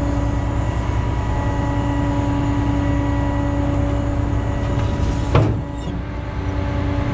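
Truck engine idling steadily, with a single sharp knock about five seconds in, after which the sound is quieter.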